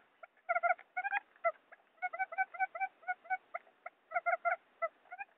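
Quail lure call, a recording of wild quail calling as played to attract quail for trapping: quick clusters of short, pitched chirping notes, several a second, repeating without a break.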